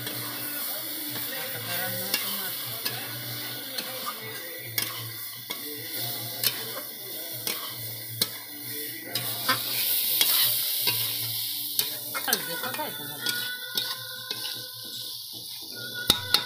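Chicken pieces and ground spices sizzling in oil in a large metal kadai, stirred with a metal spatula that scrapes and clicks against the pan at irregular intervals.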